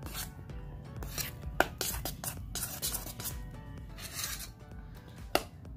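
Steel spoon stirring thick flour-and-banana pancake batter in an aluminium bowl: a run of irregular wet scrapes and clicks against the bowl's side, with faint music underneath.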